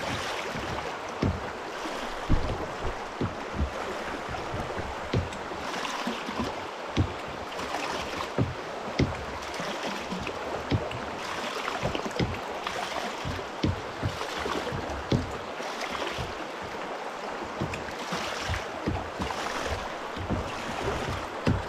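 Shallow river rapids rushing around a kayak, a steady hiss of moving water with frequent irregular low thumps and knocks from the water against the hull.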